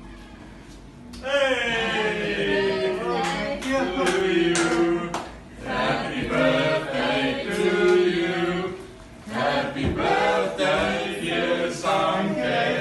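A small group of people singing a birthday song together without accompaniment, starting a little over a second in and going on in several long sung phrases with short breaks between them.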